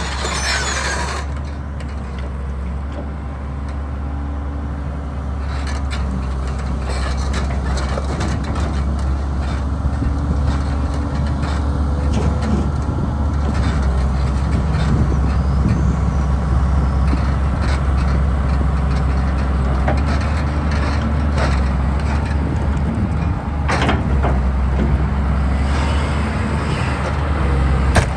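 Hitachi EX200LC-5 crawler excavator's diesel engine running steadily under hydraulic load as the boom, arm and bucket are worked, with a few short knocks from the machine.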